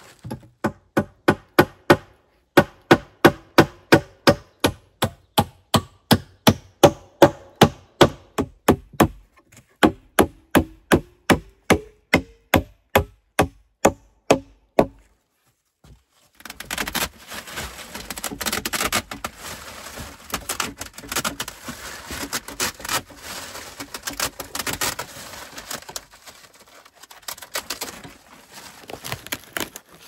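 A steady run of sharp wooden knocks, about two or three a second, for roughly fifteen seconds. After a short pause, a green plastic tarp rustles and crinkles as it is folded and handled.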